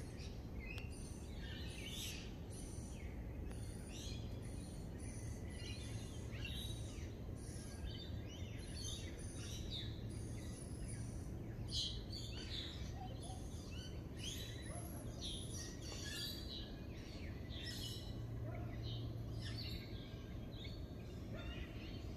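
Outdoor ambience: several birds chirping and calling in short, frequent phrases over a steady low hum.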